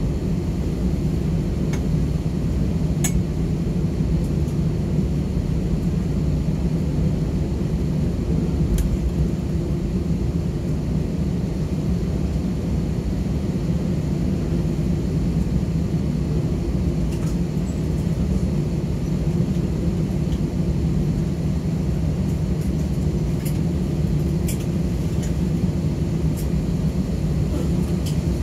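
Steady low rumble of an Airbus A320 cabin as the airliner taxis after landing with its engines at idle, under a faint steady hum. A few faint clicks stand out now and then.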